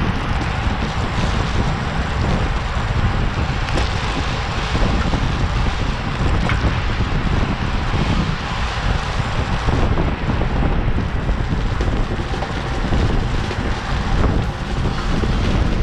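Loud, steady wind buffeting on the microphone of a camera carried on a racing bicycle at speed.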